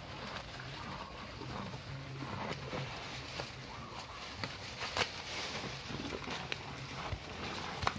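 Cows tearing and chewing fresh green grass at close range: irregular crunching and snapping of stalks, with a sharper snap about five seconds in.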